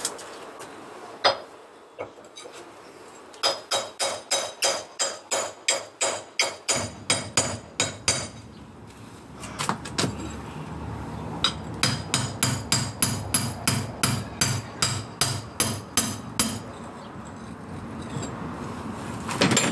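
Hammer driving a steel chisel into a concrete-block wall, chipping at the mortar to loosen the top block. The blows come as a few single strikes, then two fast runs of about four strikes a second, with a short pause between the runs.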